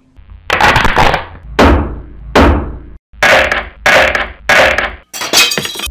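Logo-intro sound effects: a series of about seven heavy impacts, roughly one every three quarters of a second, with a low rumble beneath. The last hit, near the end, is more crackling.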